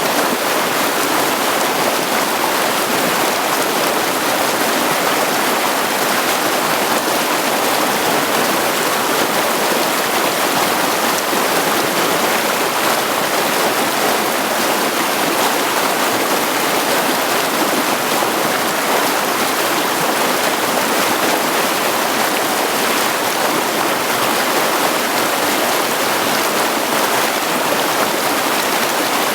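Mountain creek running over stones: a steady, even rush of water.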